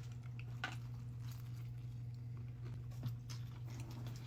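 A person chewing food close to the microphone, with soft wet mouth sounds and a few small clicks over a steady low hum.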